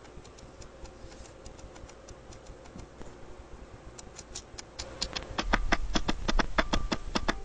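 Tokay gecko crunching a grasshopper: a run of sharp clicks, faint at first and getting louder and quicker from about five seconds in, several a second.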